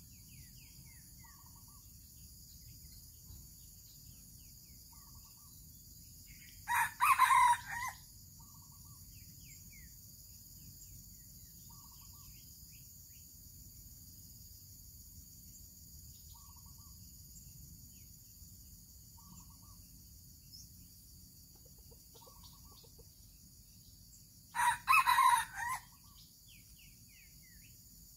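Red junglefowl rooster crowing twice, a short broken crow about seven seconds in and another near the end, over a steady high insect drone and a small bird's short calls repeated every couple of seconds.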